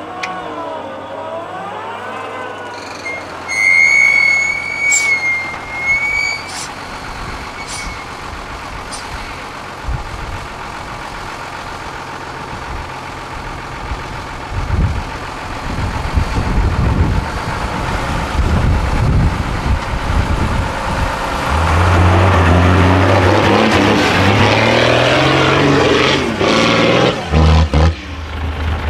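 Mercedes-Benz Unimog trial trucks' diesel engines working under load on a steep dirt climb, revving up and down. The engine is loudest over the last several seconds. About four seconds in, a brief high steady tone sounds for a few seconds.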